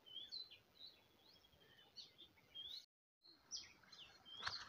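Faint outdoor background with small birds chirping: scattered short, high calls and a few brief whistled glides. The sound cuts out completely for a moment about three seconds in.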